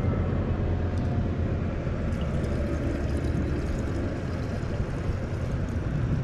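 Top-handle two-stroke chainsaw idling steadily.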